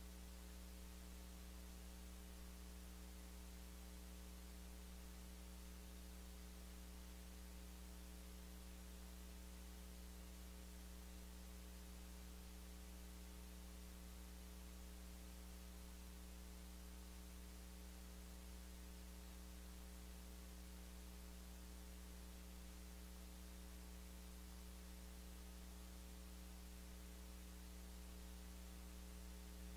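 Near silence: a steady electrical mains hum with evenly spaced higher overtones under a faint hiss.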